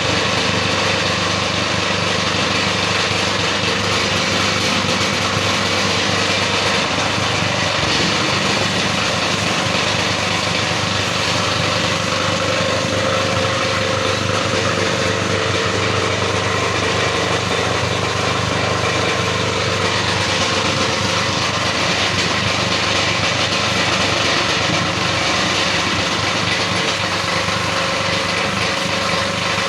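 Plastic scrap grinder machine running with a loud, steady mechanical noise that goes on without a break.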